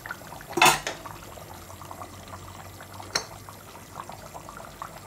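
A spoon knocks against a stainless steel cooking pot twice, a loud ringing clank under a second in and a smaller clink about three seconds in, over the faint crackle and bubbling of a simmering curry.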